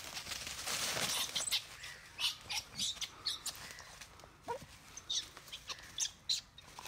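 Lurchers nosing about in dry leaf litter: a swell of rustling in the first second or so, then a run of short, crisp rustles and crackles.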